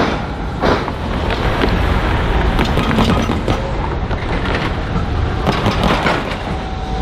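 A tram's wheels knock once over the rail crossing diamond, then a steady rush of road traffic follows with a few scattered clunks.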